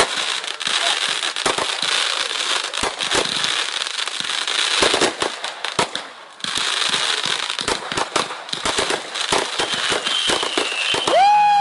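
Fireworks going off: dense crackling with many sharp bangs, easing briefly about halfway through. Near the end a loud whistling tone starts suddenly and slowly falls in pitch.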